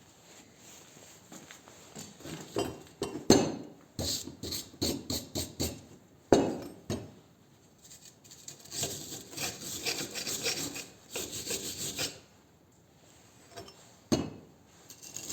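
Hand tool scraping and rubbing in quick strokes on a freshly welded steel joint, with a few sharp knocks: welding slag being knocked and brushed off the bead.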